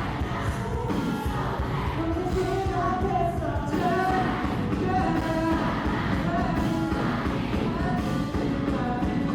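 A live rock band playing with a singer, drums keeping a steady beat under the melody.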